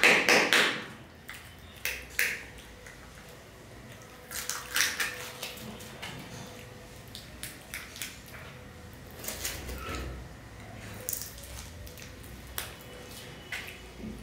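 Plastic Kings Joy candy egg and its foil seal being handled and peeled open: irregular bursts of crinkling and crackling, loudest right at the start, with softer rustles and clicks through the rest. A faint steady hum sits underneath.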